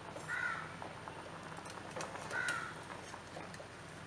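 A crow cawing twice, about two seconds apart, over the steady bubbling of a pot at a rolling boil, with a few light clicks of a steel slotted spoon against the pot.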